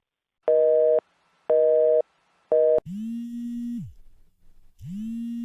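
Telephone busy tone: three short beeps about a second apart, the last one cut short as the call drops. A click follows, then two longer, lower ringing tones as the next call rings through.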